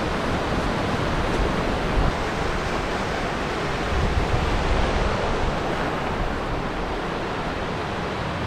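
Mountain creek (Cascade Creek) rushing over boulders in a steady wash of white water, with wind buffeting the microphone.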